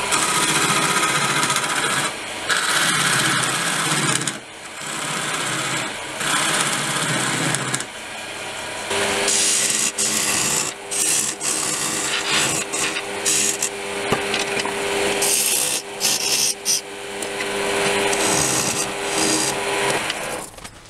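Turning tool cutting into a spinning green pear-wood blank on a lathe, hollowing the recess for the chuck in its end. It is a rough scraping cut that comes and goes in strokes, with a steady hum joining about nine seconds in, and the cutting stops just before the end.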